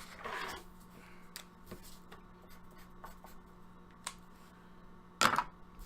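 Faint scattered clicks and handling noises over a steady low hum, with one louder short knock about five seconds in.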